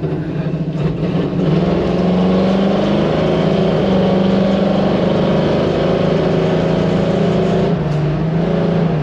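1968 Chevrolet Camaro's V8 engine pulling hard under acceleration. It gets louder about a second in and holds a strong, steady note, which steps down in pitch near the end.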